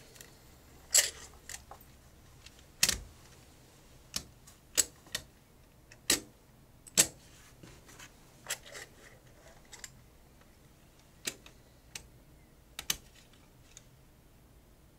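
Round plastic coin capsules clicking as they are picked up and set down on a shop counter: sharp, irregular clicks about once a second, some in quick pairs.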